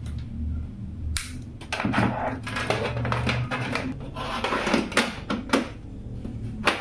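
Hands working on PC parts: an irregular run of clicks, taps and scrapes, busiest in the second half, over a low steady hum.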